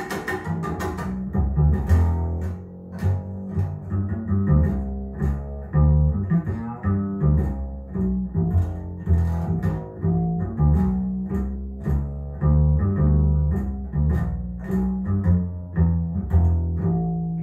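Recorded jazz with a double bass plucked in a steady run of deep, separate notes, and fainter higher notes above it.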